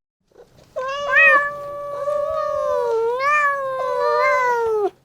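Cat giving one long, drawn-out meow that wavers in pitch and slides down before it stops.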